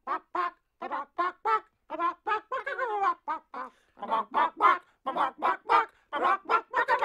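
A chicken clucking in a fast run of short, pitched clucks, several a second, in quick groups with brief pauses.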